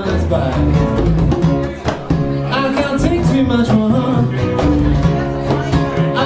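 Live band playing a song: guitar with congas and bass under a man singing.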